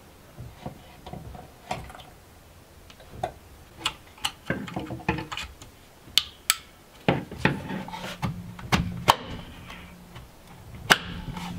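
Scattered plastic clicks and knocks of an accelerator pedal assembly being pushed onto its floor mount and its wiring plug fitted by hand.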